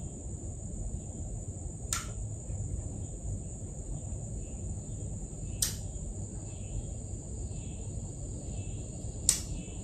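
Quiet background: a steady high-pitched drone over a low rumble, broken by three short sharp clicks a few seconds apart.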